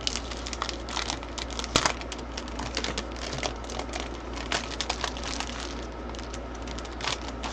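Clear plastic packaging sleeve crinkling and crackling in irregular sharp bursts as hands slide a stack of sticker sheets and papers out of it, one louder crackle a little under two seconds in.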